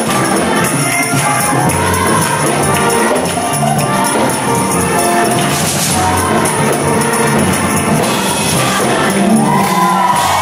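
High school choir singing a gospel praise song in a Caribbean style, many voices together, over jingling tambourine-like percussion.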